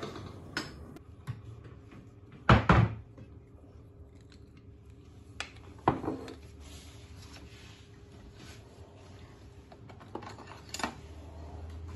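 Scattered knocks and clinks of kitchen things being handled on a countertop, the loudest about two and a half seconds in, around six seconds in and near the end.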